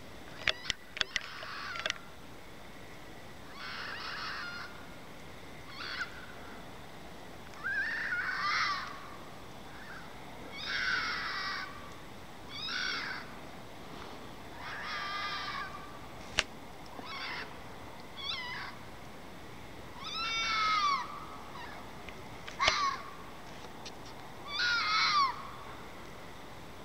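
Red fox screaming: about a dozen calls a second or two apart, each up to about a second long, several falling in pitch, which the uploader suspects are mating calls. A few sharp clicks near the start.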